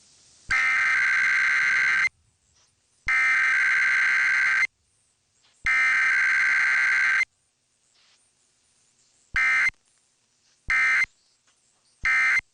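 Emergency Alert System SAME data bursts: three harsh, buzzing digital tone bursts of about a second and a half each, a second apart, carrying the test message header. These are followed by three short blips, the end-of-message bursts.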